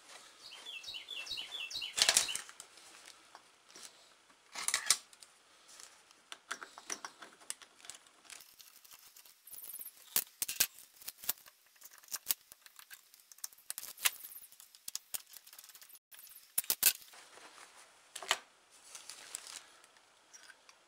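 Workbench handling: a cloth shop rag rubbed and flapped, and scattered clicks and knocks of small engine parts and tools set down on the bench. A run of quick bird chirps comes near the start.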